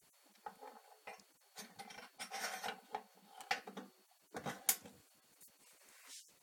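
Steel door handle and latch of a Valor Arden fabricated-steel stove worked by hand: a string of light metallic clicks, scrapes and rattles, the sharpest clack about four and a half seconds in.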